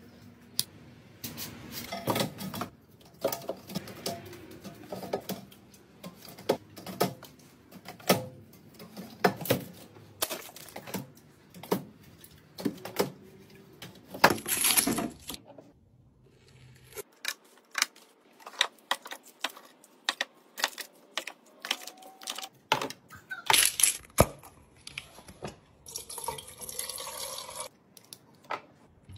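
Many quick clicks and knocks of items and containers being handled and set down, with a few short stretches of hissing or running water, the longest about two seconds near the end.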